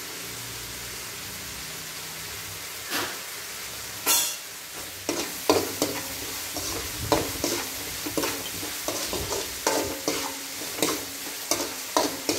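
Onion-tomato tempering sizzling in a large aluminium kadai. From about five seconds in, a steel ladle stirs it, scraping and clicking against the pan in quick repeated strokes.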